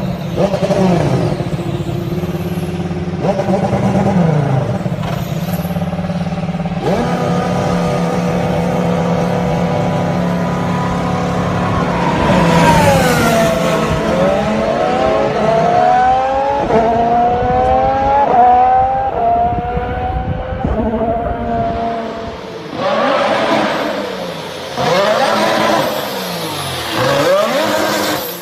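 Honda Formula 1 car's turbocharged V6 hybrid power unit running at high revs. About halfway through it drops in pitch, then climbs in a series of rising sweeps as it accelerates up through the gears; near the end it comes in short separate bursts of revving.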